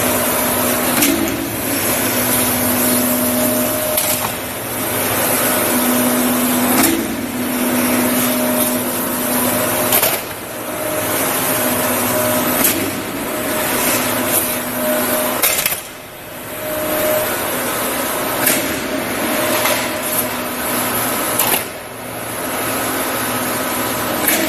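Roll-forming line with a flying shear running steadily, steel sheet hissing and rubbing through the rollers with a low hum. A short metallic impact comes about every three seconds as the shear cuts off each panel of roughly three metres.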